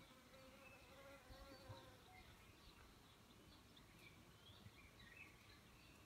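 Faint buzzing of a flying insect, wavering in pitch, mostly in the first couple of seconds. A few faint, distant bird chirps come toward the end, over quiet outdoor air.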